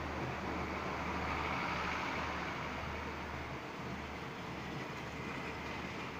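Passenger train coaches rolling past along the platform: a steady rumble and hiss of steel wheels on the rails, swelling slightly a second or two in and easing a little toward the end.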